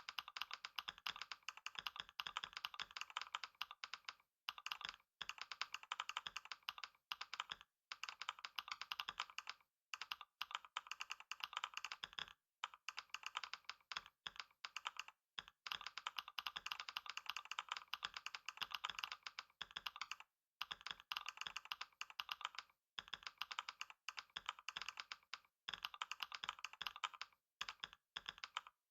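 Fast, continuous typing on a computer keyboard: a dense stream of key clicks, broken by brief pauses every second or two.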